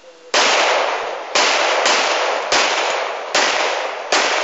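Gun firing six shots in quick succession at an uneven pace, each shot sharp and trailing off slowly into the next.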